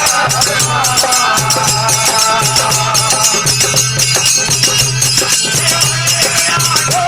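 Desi bhajan music: an instrumental passage with a fast, steady jingling percussion rhythm over a pulsing low drone and a held melody line.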